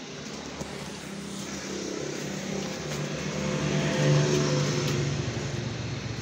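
A motor vehicle passing on the road, its engine hum growing louder to a peak about four seconds in, then fading away.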